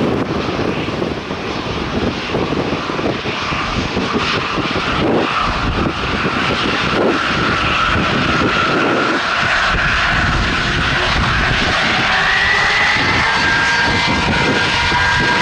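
Jet airliner engines running loud and steady, with a whine that rises in pitch in the second half.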